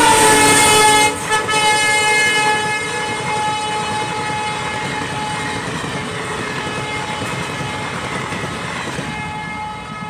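WDP4 diesel locomotive passing at speed with its horn sounding continuously, the horn's pitch dropping about as the locomotive goes by. The passenger coaches then rush past with a steady rolling wheel-on-rail noise while the horn carries on, both slowly fading.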